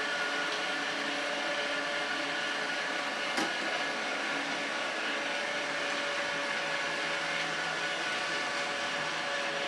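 Kitfort KT-519 robot vacuum cleaner running, a steady whir of its motor with several held tones, and a single sharp tap about three and a half seconds in.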